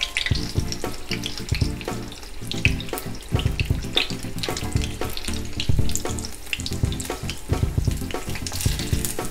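A batter-coated stuffed ripe banana deep-frying in hot oil in a small kadai, with a steady crackling sizzle. Background music plays underneath.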